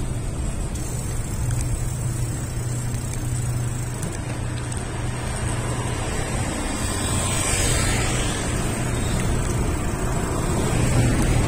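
Steady low rumble of road travel and street traffic, with a vehicle passing close by, swelling and fading about seven to eight seconds in.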